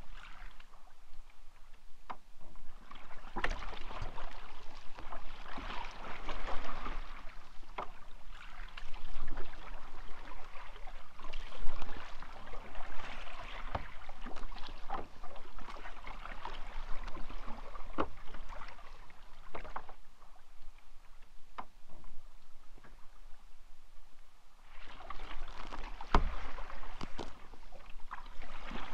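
Kayak paddle strokes dipping and splashing in lake water, the splash swelling and fading every two seconds or so, with occasional sharp knocks.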